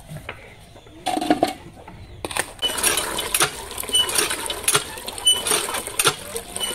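Cast-iron hand pump being worked, water gushing from its spout into a metal bucket, with a clank and short squeaks from the handle about every half second. A single metallic clank comes about a second in, before the water starts.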